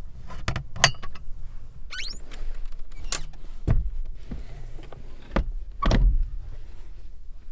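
Clicks, knocks and heavier thuds, with rustling of bedding and a short scrape, as a campervan's fold-away bed is stripped and packed away. The heaviest thuds fall a little after halfway and again about six seconds in.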